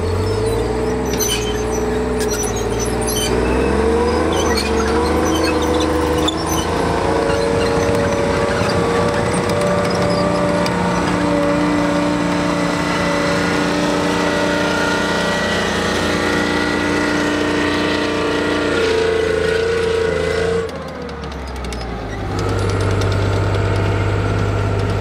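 Chieftain tank's Leyland L60 multi-fuel engine running loud under way. Its note climbs in steps in the first few seconds, then holds steady. It drops away briefly about 21 seconds in and comes back a second or so later.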